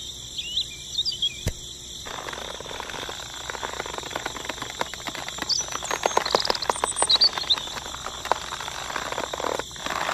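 Birds chirping, with scratchy clicking and rustling from about two seconds in as a thin wire is wrapped and twisted around a load of small sticks.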